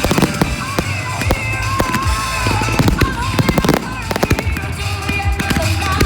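Fireworks display: frequent sharp bangs and crackling reports, with music playing underneath.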